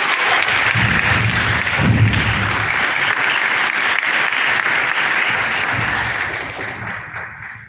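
Audience applauding: dense, steady clapping that dies away over the last second or so.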